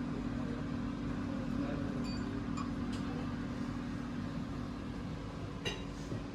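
Steady low mechanical hum of a dining room's ventilation, with a few light clinks of tableware.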